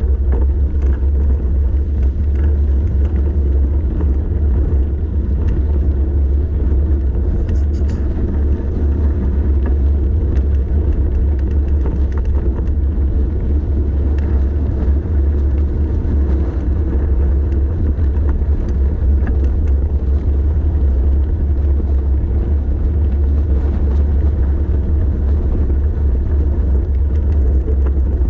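Wind buffeting the microphone, with tyre and road rumble, from a bicycle coasting downhill at speed: a loud, steady low rumble throughout.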